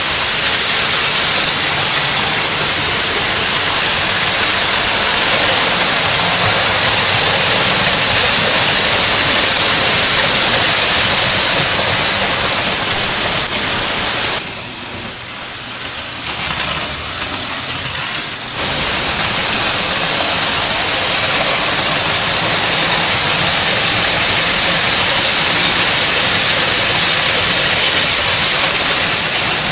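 Steady whirring hiss of O-scale three-rail toy trains rolling on metal track, dropping quieter for a few seconds about halfway through.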